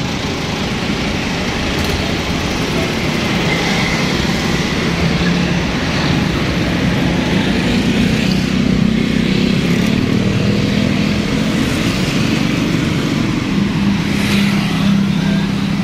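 Street traffic: motorcycles and cars passing on a busy road. A steady low engine hum comes in about five seconds in.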